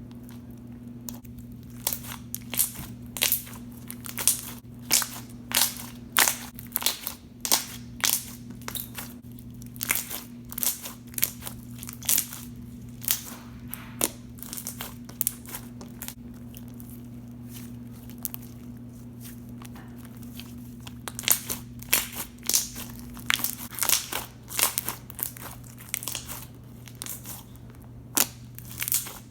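Avalanche slime (clear and white glue slime) being squeezed and stretched by hand, giving irregular sharp pops and clicks a few times a second. A steady low hum runs underneath.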